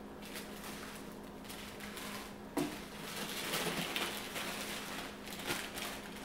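Crinkling and rustling of a black plastic bag holding printed circuit boards as it is handled and lifted out of a cardboard box, with a light knock about two and a half seconds in.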